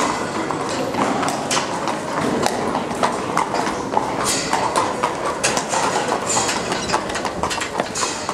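A harness racehorse's shod hooves clopping on a concrete floor as it is led, in uneven strikes over a steady background din.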